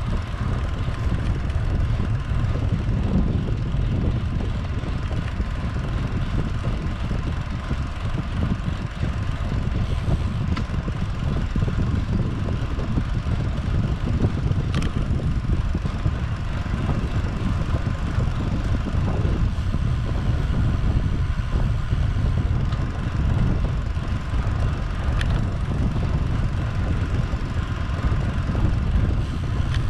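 Wind buffeting the microphone during a bicycle ride, a steady low rumble, with a few faint clicks.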